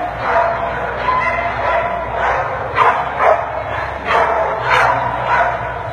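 Dogs barking and yipping in short, repeated bursts.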